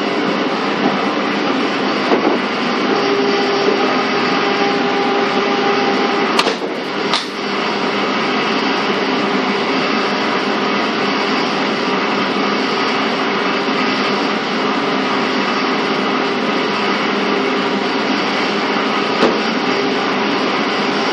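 Running sound heard inside a Japanese National Railways 485 series EMU motor car: a steady rumble of wheels on rail with the drive's hum. A steady tone fades out about six seconds in, and two sharp clunks come close together a little later.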